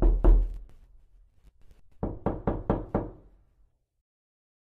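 Knocking on a door: two knocks at the start, then a quicker run of five knocks about two seconds in.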